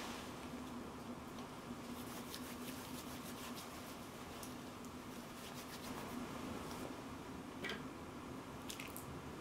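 Hands rubbing together, working in alcohol hand sanitizer with a faint squishing, over a steady low room hum. Near the end come a few light clicks as a resin Ferris-wheel clock is lifted from among others on a metal tray.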